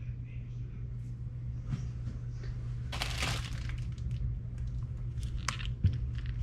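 Small household handling noises: a few light clicks and taps and a short rustle about three seconds in, over a steady low hum.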